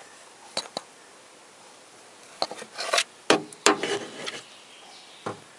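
Handling noises of hands and tools in an engine bay: two light clicks, then a busy stretch of knocks and rubbing in the middle, and one last knock near the end.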